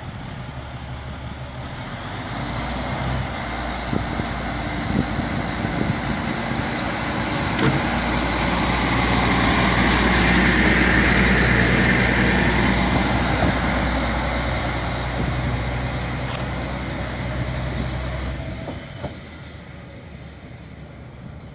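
Shigaraki Kohgen Railway SKR312 diesel railcar pulling away from the station: its engine builds up, is loudest as it passes about ten seconds in, then fades as it draws away. Two brief sharp clicks come along the way.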